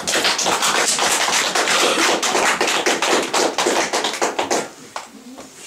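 Audience applauding: many hands clapping quickly and densely, dying away after about four and a half seconds.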